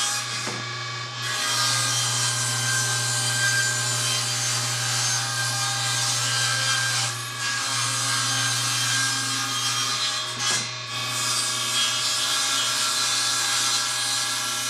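Table saw running and ripping a board in shallow passes to true up its twisted edges and faces. The cutting noise eases briefly about a second in, around seven seconds and near eleven seconds, while the saw's motor hum carries on underneath.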